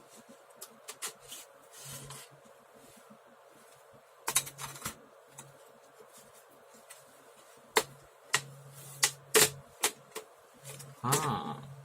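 Scattered clicks and taps of an HP laptop's plastic case and parts being handled during disassembly, with a short rustle near the end.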